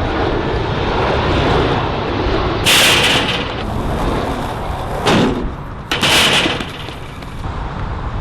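Skateboard wheels rolling on concrete with a steady rumble, broken by three sharp, harsh hits and scrapes from the board, about three, five and six seconds in.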